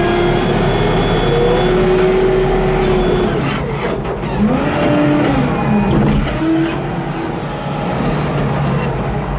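Case W20E wheel loader's diesel engine running under load, heard from the operator's seat, as the bucket cuts and lifts soil. Several rising-and-falling squeals come from the machine in the middle.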